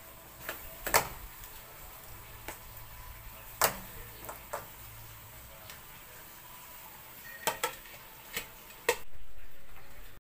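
Irregular sharp knocks and clicks of mud crab shells and claws against a metal wok as the crabs are handled and their ties pulled off, about ten taps. Near the end a steady noise takes over and slowly fades.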